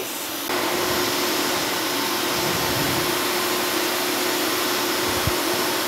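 Steady whooshing machine noise with a faint constant hum, starting about half a second in, and a single low thump near the end.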